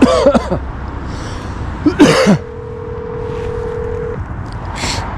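Phone ringback tone while a call connects: one steady ring of just under two seconds in the middle, the ring-and-pause cadence of a number still ringing unanswered. Brief throat-clearing-like vocal sounds come just before it.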